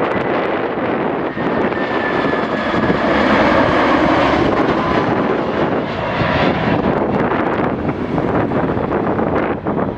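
Airbus A319's twin CFM56 turbofan engines on final approach, passing low overhead: a steady jet rush that swells to its loudest a few seconds in, with a faint falling whine.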